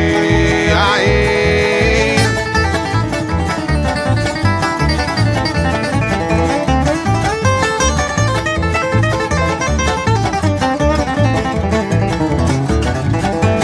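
Bluegrass band music: a sung note is held for about two seconds, then an instrumental break of fast banjo picking with guitar and a bass thumping out a steady beat.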